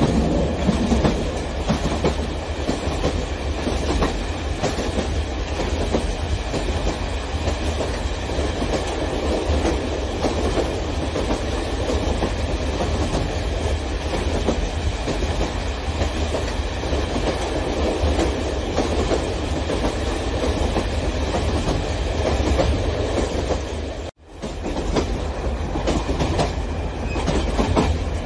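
Large-scale model passenger train rolling along the track, its wheels giving a steady clickety-clack over the rail joints under a low rumble. The sound cuts out briefly near the end, then resumes.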